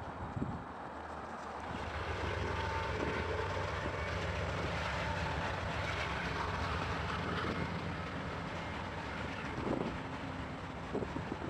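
Freight train rolling past on an elevated track. A diesel locomotive's steady engine drone is joined by the even rumble and rush of wheels on rail from the tank cars and hoppers behind it, growing louder about two seconds in.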